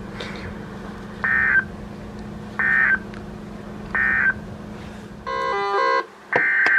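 Three short identical bursts of EAS data tones, each about a third of a second and about a second apart: the end-of-message code that closes an Emergency Alert System warning, over a steady low hum. Near the end the hum stops and a denser burst of electronic data tones begins.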